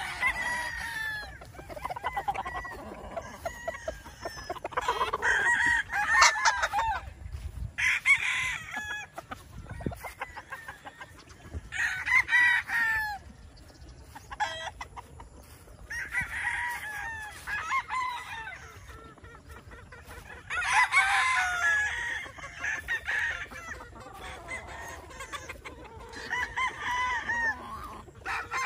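Gamefowl roosters crowing in turn, a crow every few seconds from different birds near and far, with chickens clucking between the crows.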